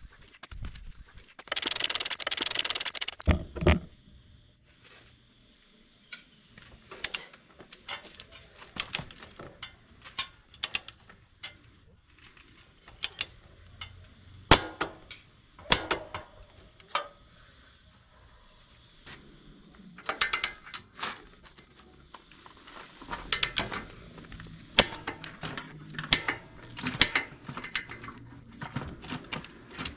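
Mechanic's hand tools working on a motorcycle: scattered metal clicks, taps and ratcheting knocks, with a loud hissing burst of under two seconds near the start.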